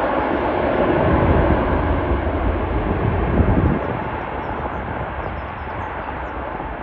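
Jet engine noise from a Boeing 737 MAX 8-200 with CFM LEAP-1B turbofans arriving: a loud, steady rush with deep rumble that eases off about four seconds in and fades as the aircraft moves away.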